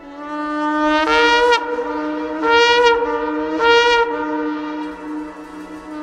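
Shofar blowing: a held note swells up, then breaks into three loud calls about a second apart, each rising a little in pitch, and fades away after about four and a half seconds. A steady low drone of background music runs underneath.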